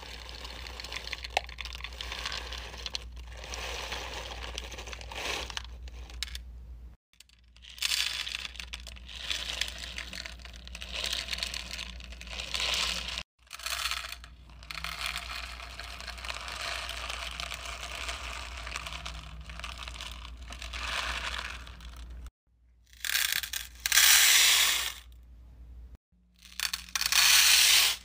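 Small clay and plastic beads pouring and rattling into the compartments of a clear plastic bead organizer, with a plastic bag crinkling, in a string of short clips that cut off suddenly one after another. The loudest pours come near the end.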